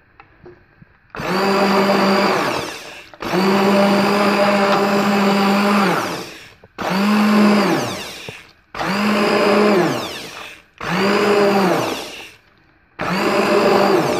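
Handheld immersion blender pureeing soup in a steel pot, switched on and off in six bursts of one to three seconds. Its motor hum drops in pitch as it spins down after each burst.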